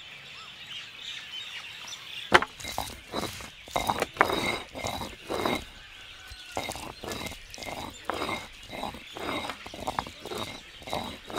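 Stone roller of a South Indian flat grinding stone (ammi kal) worked back and forth over the wet slab, grinding a paste: a run of scraping strokes that starts about two seconds in. Birds chirp faintly in the background.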